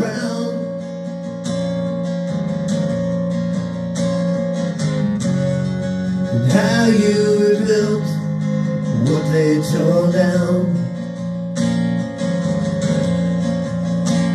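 Recorded song playing: strummed acoustic guitar holding steady chords, with a melody line that bends up and down twice around the middle.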